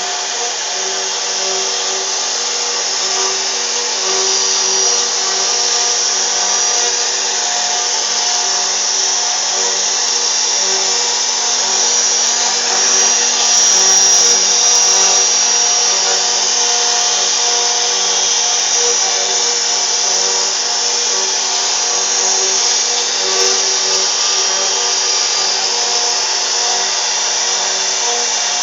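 CNC router spindle running steadily while carving wood: a continuous high whine over cutting noise, a little louder about halfway through.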